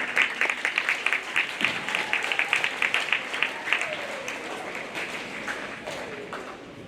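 Audience applauding with dense clapping that dies away over the last couple of seconds, with a few voices heard through it.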